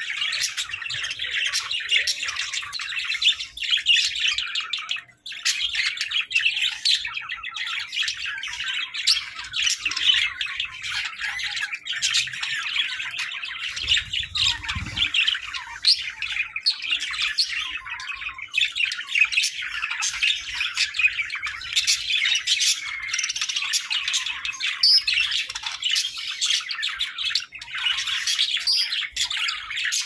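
A group of budgerigars chattering continuously: fast, busy warbles, chirps and squawks overlapping, with a brief lull about five seconds in.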